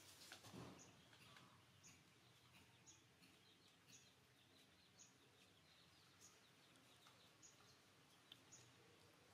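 Near silence: a small bird chirps faintly in the background, a short high note about once a second. There is a brief soft rustle just after the start.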